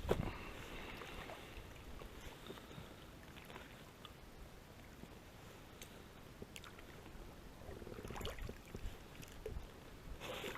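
A gill net being handled at the water: a knock at the start, then faint scattered clicks and small splashes and drips, a little busier about eight seconds in.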